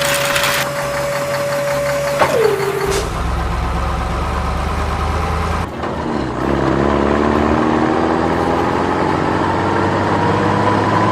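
Vehicle engine sound: a steady engine note that drops in pitch about two seconds in, then after a break near six seconds a new engine note that climbs slowly and steadily in pitch as it speeds up.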